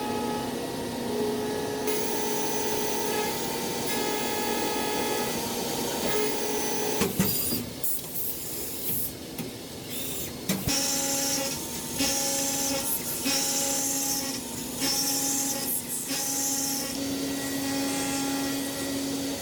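Machine tool running: steady motor whines that switch and shift pitch in steps. Two sharp knocks come partway through, followed by short hissing bursts about once a second.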